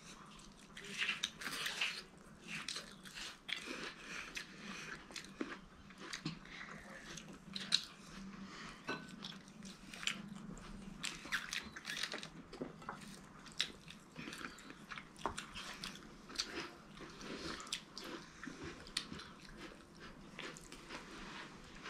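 Chewing and biting into fried chicken: many short, irregular crunches and mouth sounds, steady throughout.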